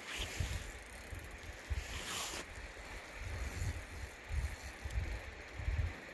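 Wind buffeting the microphone in irregular low rumbles over the steady rush of the river, with a brief hiss about two seconds in.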